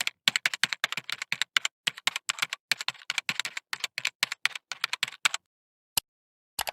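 A quick, irregular run of sharp clicks, like keys being typed, lasting about five seconds, then two lone clicks near the end.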